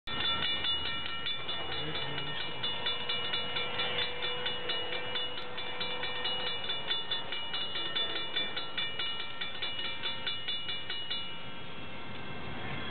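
Railroad grade-crossing warning bell ringing rapidly, about three strokes a second. It stops about 11 seconds in.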